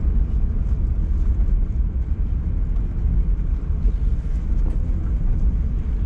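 Car driving along a road: a steady low rumble of engine and road noise.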